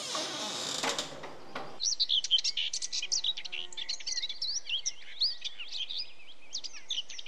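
A dense chorus of small songbirds chirping and twittering, with many quick overlapping calls that start about two seconds in. Before that there is a second or two of scraping noise as the front door is opened.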